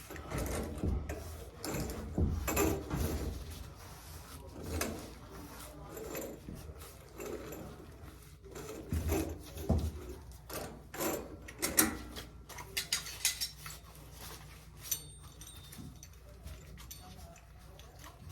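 Irregular metal clinks, knocks and scrapes as a threaded valve is turned off an iron steam pipe with channel-lock pliers and handled.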